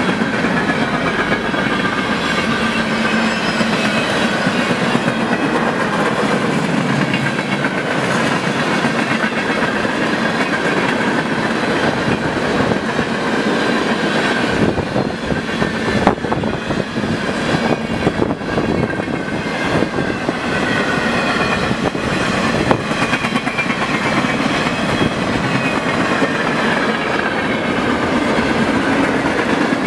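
Freight train cars rolling steadily past up close: a continuous loud rumble and rattle of steel wheels on rail, with a few sharp clicks in the middle and faint high tones wavering above the noise.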